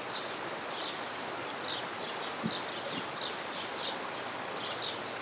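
Outdoor ambience: a steady hiss with short, high chirps from small birds repeating about twice a second.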